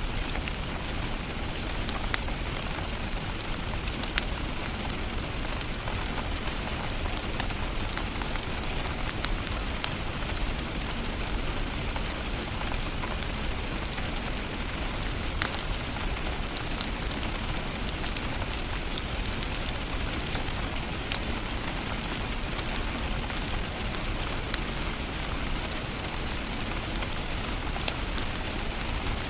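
Wood fire in a fireplace crackling: a steady hiss with many scattered sharp pops and snaps.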